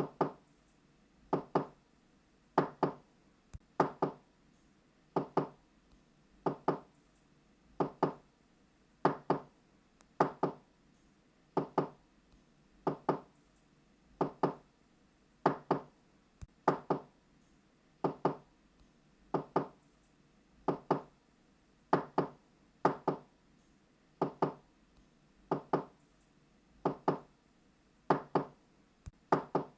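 Knocking on a door in evenly repeated 'knock knock' pairs: two quick strikes, then a pause, about one pair every 1.3 seconds.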